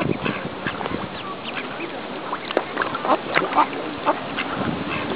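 Birds calling: many short, repeated calls over a steady noisy background.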